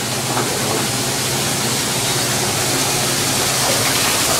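Steady rush of water spraying or running at a commercial kitchen dish station, with a low steady machine hum beneath it.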